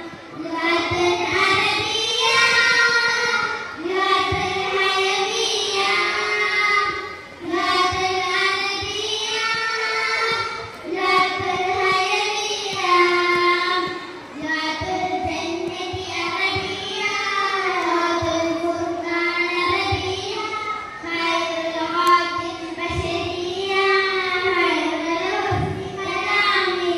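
A child singing solo, a melodic song in phrases of three to four seconds with wavering held notes and short breaks for breath between them.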